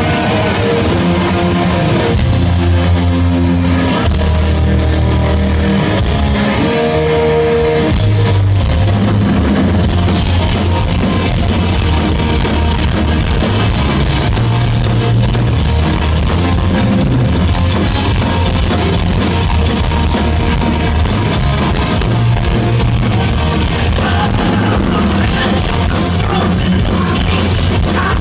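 Heavy metal band playing live: distorted electric guitar over bass guitar and a drum kit, loud and continuous, with long held low notes in the first several seconds before the playing gets busier.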